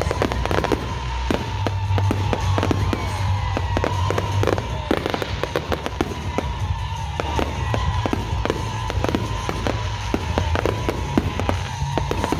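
Aerial fireworks display: many sharp bangs and crackles of bursting shells in quick succession, over music.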